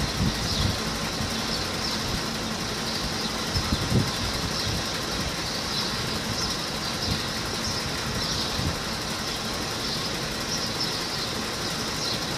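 Box delivery truck's diesel engine idling steadily, with a few dull knocks near the start and about four seconds in.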